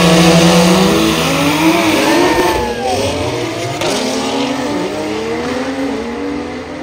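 Two race cars launching down a drag strip at full throttle. The engines are held at high revs, then accelerate hard with the pitch climbing and dropping at each upshift, and fade as the cars pull away down the track.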